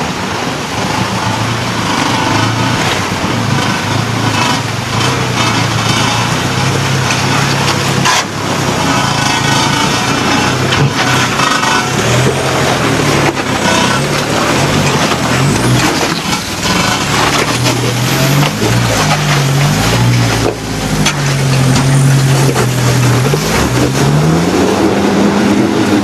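Toyota Hilux engine labouring under load as it tows a camper trailer up over rocks out of a river crossing. The revs rise and fall again and again over the rush of water, with a few knocks along the way.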